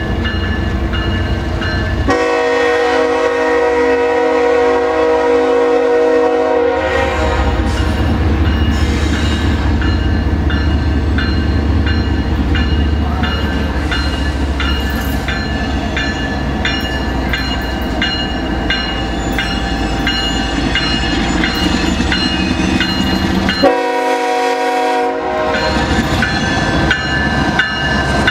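CSX diesel locomotive's air horn sounding a long chord about two seconds in and another near the end, over the low rumble of the locomotive's engine as the freight train approaches.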